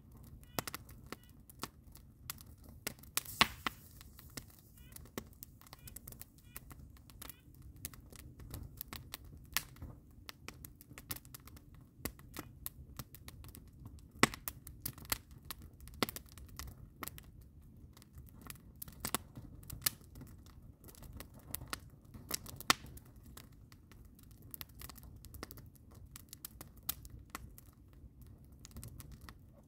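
Wood fire of split logs and green spruce boughs crackling: a steady run of small irregular pops with a few loud sharp snaps, the loudest about fourteen seconds in.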